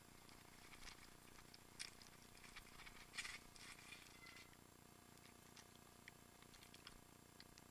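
Faint clicks and rattles of a mountain bike jolting over loose stones, with the sharpest knocks about two and three seconds in and only scattered ticks later on.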